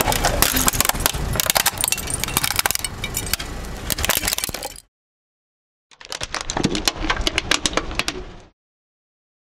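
Clear plastic pot full of water and water beads cracking and shattering under a car tyre, with dense snapping and crackling of the plastic for about five seconds. After a second's pause comes a second, shorter burst of cracking and clinking from the broken pieces.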